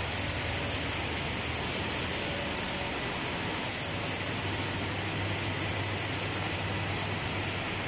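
Steady noise of dry pet food processing machinery running, with a low hum that strengthens a little about halfway through.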